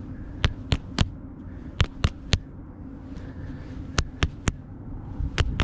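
Fists slapping into open palms in the rhythm of rock-paper-scissors rounds: sets of three sharp slaps about a quarter second apart, three full sets and the start of a fourth, each set about a second and a half after the last.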